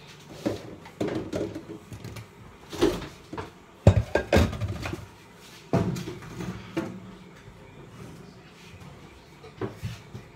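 Kitchen handling sounds: a string of irregular knocks and clunks from cupboards and dishes being moved and set down, the loudest a pair about four seconds in.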